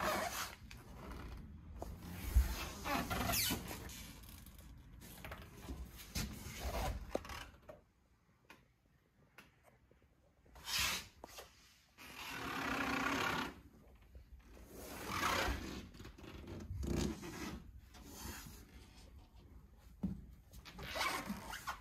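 Irregular rubbing and rustling handling noise from a hand-held camera being moved around a motorcycle, with scattered soft bumps and a longer rasping stretch a little past halfway.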